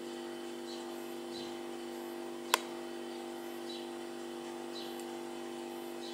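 Fledgling house sparrow begging to be fed, with short high chirps about once a second. A single sharp click comes about two and a half seconds in, over a steady low hum.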